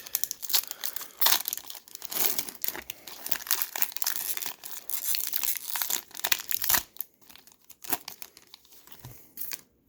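Hockey card pack wrapper crinkling and tearing as it is ripped open, a dense run of crackles for about seven seconds that thins out and stops near the end.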